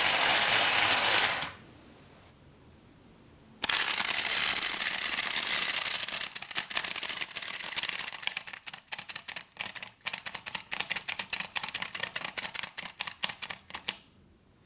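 Clockwork of a wind-up tin toy running with a rattling whir that stops about a second and a half in. About two seconds later another starts abruptly, its whir breaking into a run of rapid clicks that lasts until near the end.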